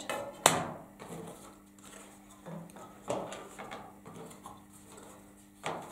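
Pieces of thick construction card being handled and slid across a cutting mat, with a sharp click about half a second in and softer knocks and rustles about three seconds in and near the end.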